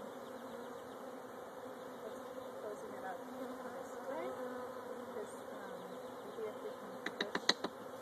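A large colony of honeybees buzzing around an open hive: a steady hum, with single bees whining past close by, rising and falling in pitch. A quick run of sharp clicks near the end.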